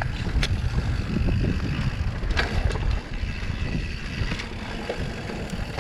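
Wind buffeting the microphone with a low rumble while a mountain bike rides down a rough trail, broken by a few sharp clicks and rattles.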